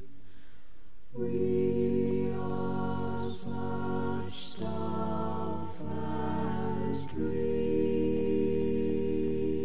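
Small close-miked vocal ensemble singing a slow a cappella part song in held chords. After a softer first second, the voices come in on a fuller chord and move to a new chord every second or so, with a few sung 's' sounds hissing through.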